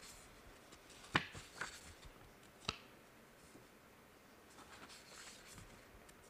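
Pages of a book being leafed through: faint paper rustling with three short, sharp clicks in the first three seconds.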